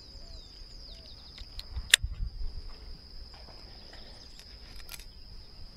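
Insect chorus outdoors: a steady high-pitched drone, with a few faint falling chirps in the first second and a single sharp click about two seconds in.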